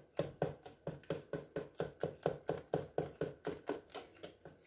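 Wire whisk beating egg-and-cream custard in a metal mixing bowl: a quick, even run of light clicks as the wires strike the bowl, about five strokes a second.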